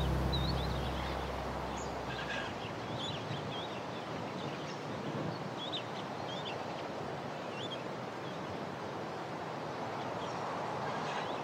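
Background music fades out over the first two seconds or so, leaving a steady outdoor ambience with small birds chirping now and then.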